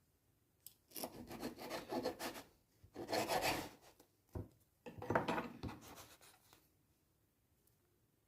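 Rasping, rubbing handling sounds in three bursts of a second or two each, with a short knock between the second and third.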